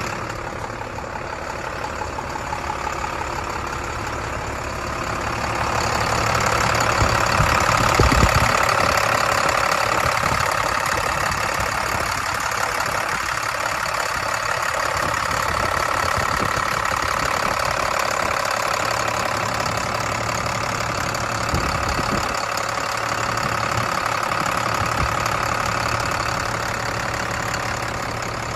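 Diesel engine of a 2004 International box truck idling steadily, heard close up in the open engine bay. A low thump comes about eight seconds in and another about two-thirds of the way through.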